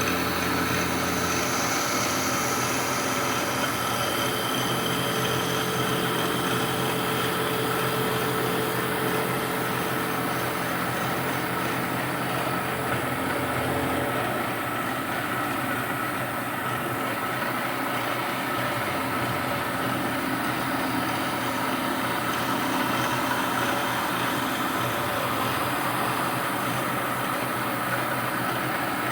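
1980 Shizuoka AN-S CNC milling machine running, its spindle giving a steady hum and whine during the profile-chamfering and countersinking operation on a 1018 steel part. The lower hum shifts about a second and a half in and again about halfway through.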